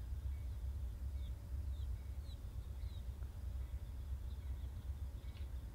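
A low, steady rumble, with a small bird giving several short, falling chirps in the first half.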